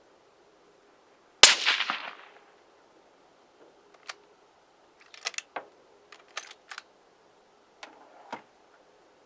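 A single shot from a .243 rifle fitted with a 12-inch custom suppressor: a sharp crack with a short fading tail, followed a few seconds later by a scattered string of short sharp clicks and clacks.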